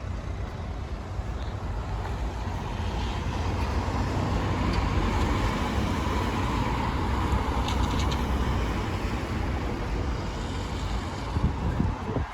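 Road traffic passing near the level crossing, a steady rumble of tyres and engines that swells and eases, with low wind rumble on the microphone and a couple of brief knocks near the end.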